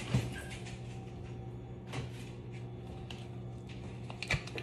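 A few short knocks and clicks of things being handled in a kitchen, the sharpest just after the start, another about two seconds in and a quick pair near the end, over a steady low hum.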